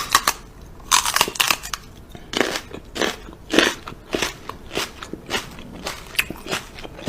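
Pizza crust being chewed: a steady run of crisp crunches, a little under two a second.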